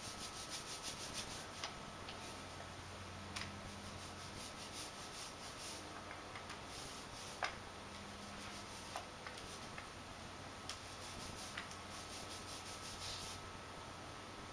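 Mini paint roller being worked back and forth over a wall stencil. It makes a rhythmic rubbing swish in several runs of quick strokes with short pauses, and a few light clicks in between.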